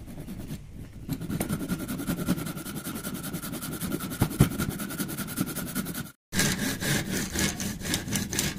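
Handsaw cutting through a thin wooden piece clamped in a vise, in quick steady back-and-forth strokes. The sawing breaks off briefly about six seconds in, then carries on.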